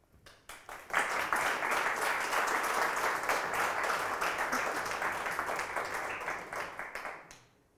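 Audience applause of many hands clapping. It swells up about a second in, holds steady, then dies away shortly before the end.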